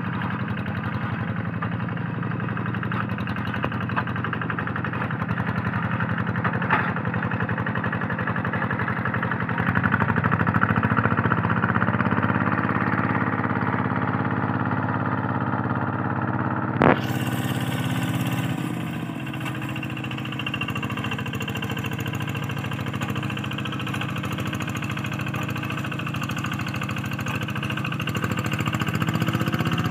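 Quick G3000 Zeva hand tractor's single-cylinder diesel engine running steadily under load while harrowing a flooded rice paddy. Its pitch rises for several seconds about a third of the way in and settles lower after a single sharp click about halfway through.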